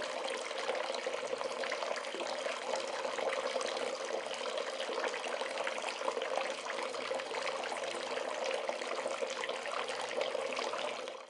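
Bath tap running, a steady stream of water splashing into the tub, beginning to fade out at the very end.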